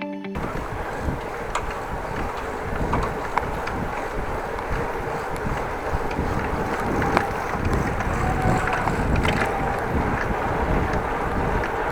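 Wind buffeting the microphone of a camera on a moving bicycle, with road noise and scattered small clicks and rattles. Intro music cuts off just as it begins.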